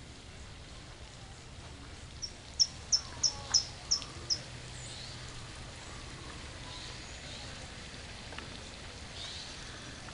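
A small bird gives a run of six or seven short, high, sharp call notes, about three a second, a couple of seconds in. It is a territorial bird attacking its own reflection in a parked car's mirror.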